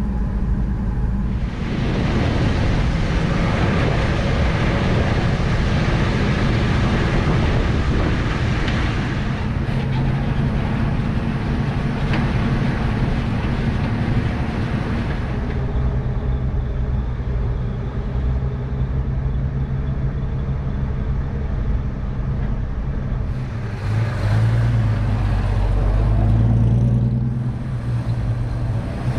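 The inline six-cylinder engine of a 1953 Chevrolet panel truck running as the truck drives off and under way, with road and wind noise. It is heard first from inside the cab, then from outside the truck.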